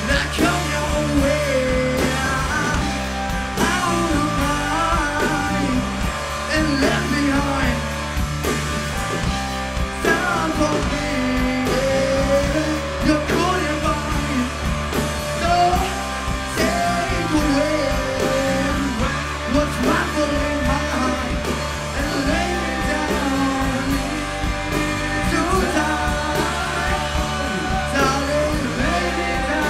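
Live rock band playing: a male lead singer over electric guitars, bass guitar and a drum kit, loud and continuous.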